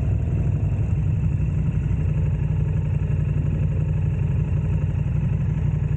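KTM 1290 Super Adventure's V-twin engine running steadily through a Wings aftermarket exhaust, with no marked revving.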